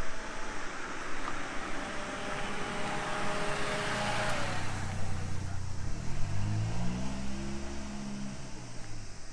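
A car drives past, its noise swelling to a peak about four seconds in and fading. Then a vehicle engine pulls away with its pitch rising, and it dies out near the end.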